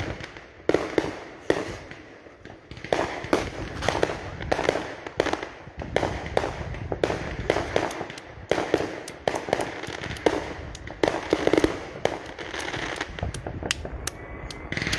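Fireworks going off: a rapid, irregular string of sharp cracks and bangs, with several louder blasts among them.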